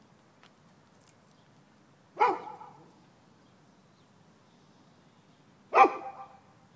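Two loud, short animal calls about three and a half seconds apart, each a single sharp note with a brief trailing tail.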